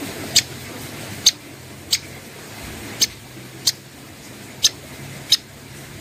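A cucak koreng (striated grassbird) giving short, sharp ticking call notes, seven in all, irregularly spaced, over a faint steady low hum.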